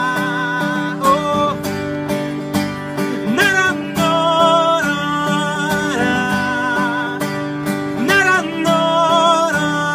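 A man singing long held notes without words, wavering in pitch and sliding from one note to the next, over a strummed acoustic guitar.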